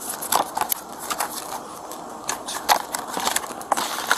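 Irregular crackling and clicking handling noise right at a body-worn camera's microphone, as paper or clothing rubs and knocks close to it.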